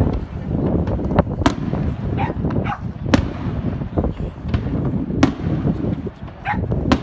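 Fireworks display: an irregular run of sharp bangs from shells bursting overhead, about one or two a second, over a steady low rumble.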